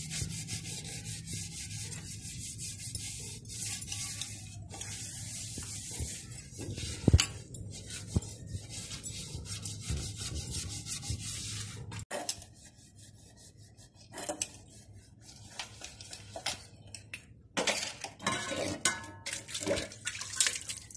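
Metal plates and pots being scrubbed with a scouring pad: dense scratchy rubbing for about the first half, with one sharp knock partway through. Then the scrubbing gives way to scattered scrapes and clanks of metal utensils being handled and set down, busier near the end.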